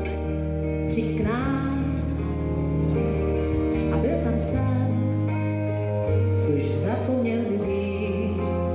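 Live band music: sustained chords over a steady bass, with a lead line that bends in pitch.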